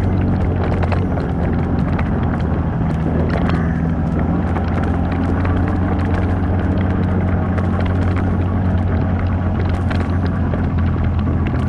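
4x4 off-road vehicle driving on a trail, its engine running at a steady speed, with scattered clicks and knocks throughout.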